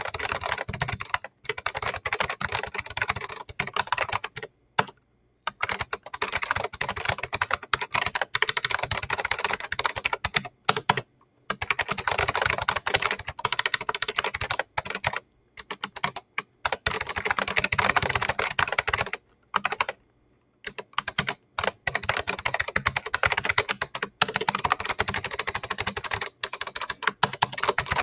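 Fast typing on a custom 3D-printed hall-effect keyboard whose key presses also switch a generic 8-channel relay board, so every keystroke comes with a sharp relay click. The clicks come in dense runs, broken by a few short pauses of up to about a second.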